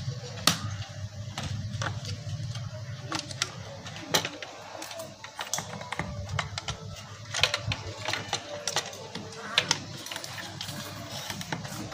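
Rubber waterproof boot being pushed and worked onto an LED headlight bulb in a plastic scooter headlight housing: irregular small clicks and knocks of plastic and rubber handling.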